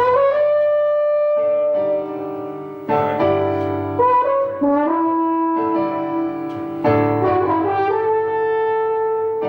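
A brass horn plays a slow melody of long held notes, sliding into some of them, over piano chords.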